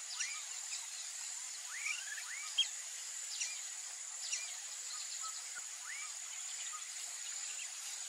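Wetland ambience: a steady high-pitched insect drone under many short, rising bird chirps coming several a second.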